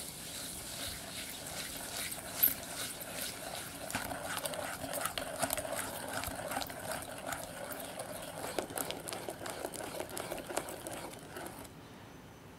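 A whisk beating egg yolks and cane sugar in a glass bowl for a custard cream base: a quick, rhythmic stream of soft clicks and scrapes against the glass. There is one sharper clink about two and a half seconds in, and the whisking stops shortly before the end.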